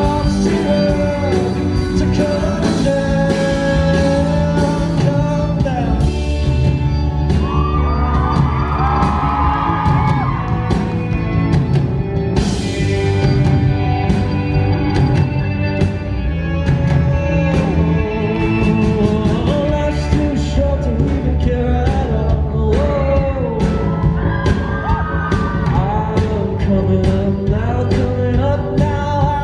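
Live pop-rock band playing with a male lead vocal over a steady drum beat and bass, heard from the audience in a large hall.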